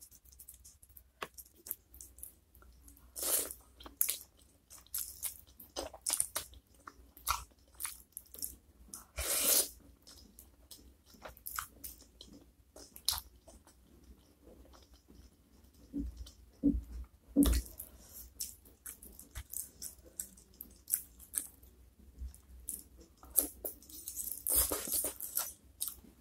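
Close-miked eating sounds: chewing, biting and slurping spicy flat noodles and soft chicken feet, a string of irregular wet clicks and crackles with a few longer slurps. A few dull knocks come about two-thirds of the way through.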